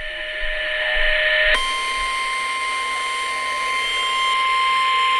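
NOAA Weather Radio's warning alarm tone, a single steady 1050 Hz tone that sounds slightly buzzy. It comes on out of radio static about a second and a half in and holds, with a brief dropout near the end. It signals that a severe thunderstorm warning message is about to be broadcast.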